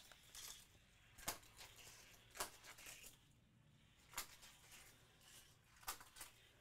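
Hot Wheels Batmobile die-cast toy car running along orange plastic Hot Wheels track through kicker loops: a handful of faint, sharp clicks and light rattles spread over several seconds.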